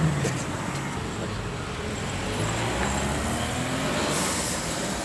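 Low hum of a motor vehicle engine over steady road traffic noise, the hum shifting slightly in pitch.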